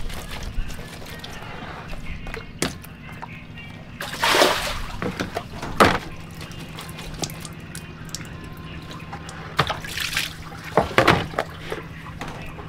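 Water dripping, sloshing and splashing as a plastic colander of cut vegetables is dipped, lifted and shaken over a plastic basin of water, with a few louder splashes. A faint steady low hum runs underneath.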